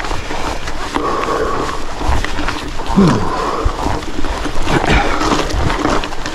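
A mountain biker panting hard on a steep climb, with loud breaths about every two seconds and a falling, groaning exhale about three seconds in. Low thumps run underneath.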